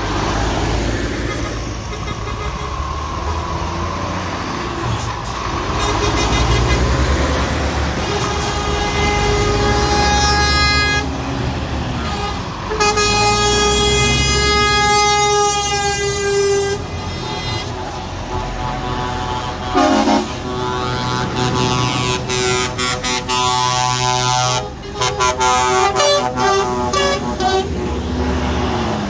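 Heavy lorries rumbling past one after another with their diesel engines running, sounding air horns: one long blast lasting about four seconds near the middle, a short blast after it, then a run of short blasts near the end.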